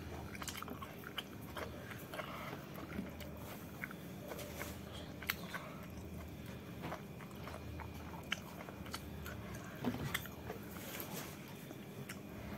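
Soft eating sounds: chewing and biting with scattered small clicks as fingers pick food from a plate.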